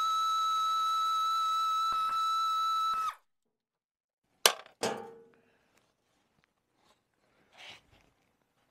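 A steady high-pitched tone at one fixed pitch that cuts off abruptly about three seconds in. After a second of silence come two sharp metallic clinks, a tool or bolt being set down, then faint handling sounds.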